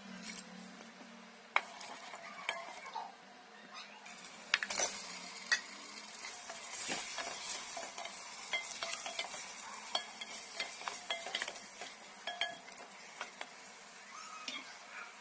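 Masala sizzling in oil in an aluminium pot while a wooden spoon stirs it, knocking and scraping against the pot's sides. The sizzle thickens about six seconds in, as raw mutton goes into the pot.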